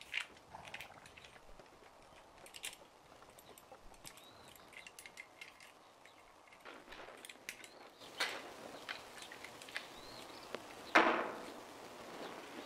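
Quiet room with scattered small clicks and handling noises and faint chirps, then a louder short rustle about eleven seconds in.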